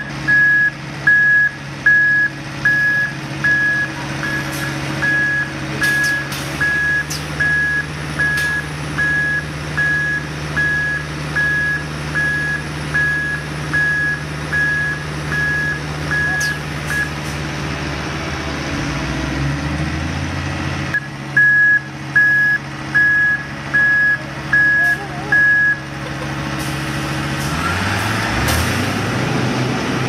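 Asphalt distributor truck backing up, its diesel engine running steadily under a reverse alarm beeping a little over once a second. The beeping stops past the middle, returns for a few seconds, then gives way to a rising engine note and a rushing noise near the end.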